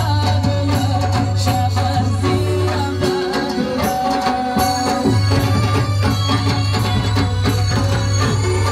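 Pashto folk music for the attan dance: a drum beating a steady run of strokes under a held low drone and a melody line.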